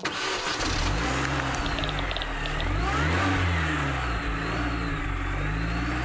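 Car engine revving in the channel's intro sound effect, its pitch rising and falling several times.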